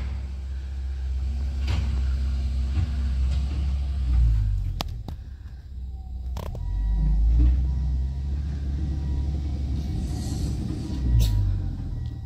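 John Deere excavator's diesel engine running, a steady low rumble, with a few short sharp knocks about five, six and a half and eleven seconds in.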